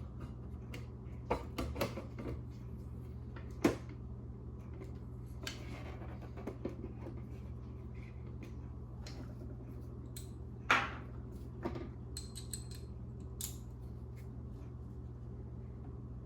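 Instrument cluster lens and front bezel being handled and fitted into place: scattered light clicks, knocks and brief scrapes of plastic parts, with two sharper clicks standing out, over a steady low hum.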